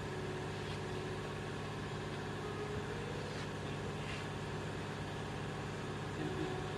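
Car engine idling steadily, an even continuous hum with a few faint clicks over it.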